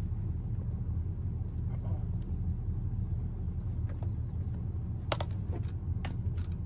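Steady low rumble under a constant high chorus of night insects such as crickets, with a few sharp clicks about five and six seconds in.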